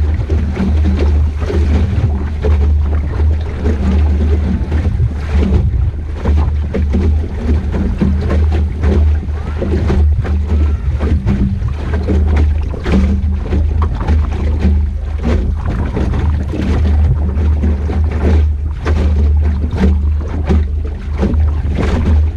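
Wind buffeting the microphone of a camera on a small Optimist sailing dinghy under way, a steady heavy rumble, with water splashing and slapping against the hull in frequent short knocks.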